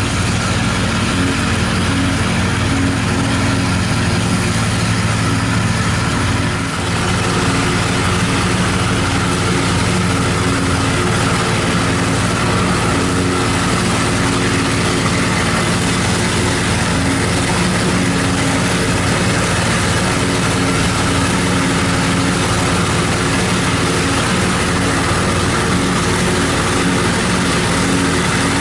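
New Idea 705 Uni System forage harvester with a Uni Chopper and corn head running under load as it cuts and chops standing corn for silage: a steady drone of engine and chopper.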